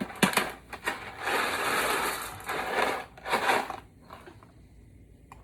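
Dry pasta shaken out of a cardboard box into a pot of boiling water: a couple of clicks, then a long rattling pour and a shorter second shake before it goes quiet near the end.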